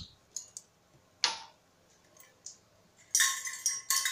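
Light clicks and clinks of bottles and containers being handled, then about three seconds in a louder, longer clatter of utensils on containers with a faint ringing tone.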